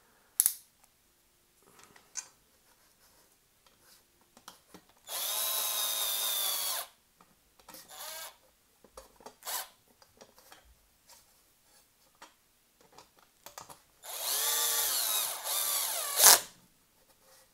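Cordless power driver running twice, each time for about two seconds, driving screws into an RC truck's chassis plate on a lowered torque setting; the second run ends with a sharp click. Light clicks of handling between the runs.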